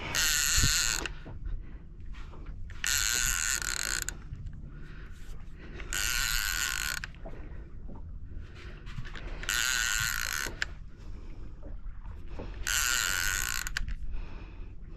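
Fishing reel ratcheting in five bursts of about a second each, some three seconds apart, under the pull of a hooked fish.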